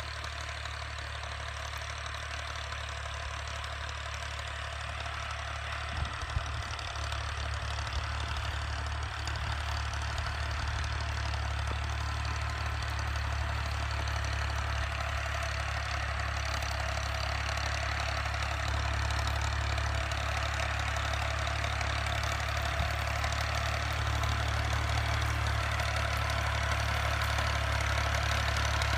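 Fiat 480 tractor's three-cylinder diesel engine running steadily while pulling a plough, growing gradually louder. There are two short knocks about six seconds in.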